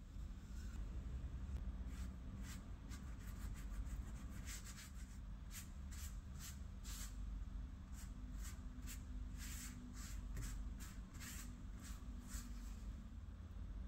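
Silicone pastry brush stroking olive oil over rolled-out bread dough: quick, irregular brushing strokes, about two to three a second, over a low steady hum.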